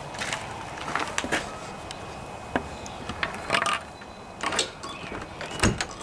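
Clicks, knocks and scrapes of a wooden fence gate being unlatched and swung open, with a heavier knock near the end.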